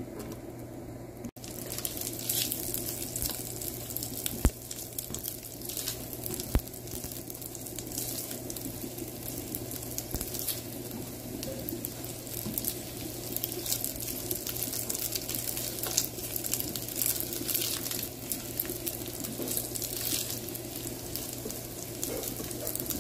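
Chicken salami slices sizzling and crackling as they fry in melted butter, over a steady low hum, with two sharp clicks a couple of seconds apart.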